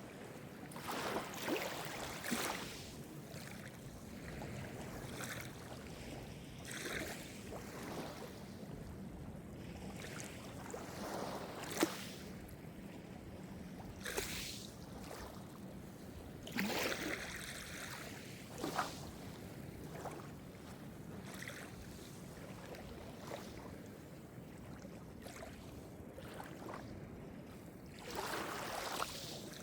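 Calm Mediterranean surf: small waves washing in over a steady background wash, with short splashes breaking every few seconds and one sharper splash about twelve seconds in.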